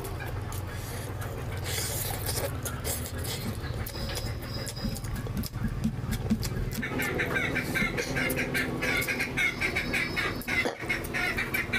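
Wet eating sounds from a man eating oily curry and rice with his bare hand: fingers squelching through the rice and curry, and chewing and lip-smacking with many sharp wet clicks. A steady low hum runs underneath. About seven seconds in, a fast run of short high-pitched sounds joins in and carries on to the end.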